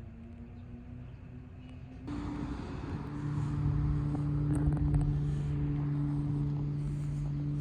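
An engine running steadily: a low droning hum that starts suddenly about two seconds in and grows louder, then holds.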